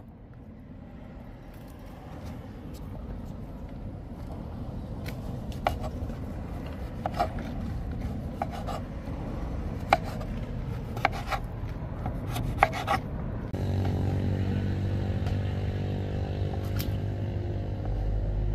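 Kitchen knife cutting pumpkin into cubes on a cutting board: scattered sharp taps of the blade striking the board, with rubbing and scraping of the blade through the flesh. About thirteen seconds in, steady background music with held tones comes in.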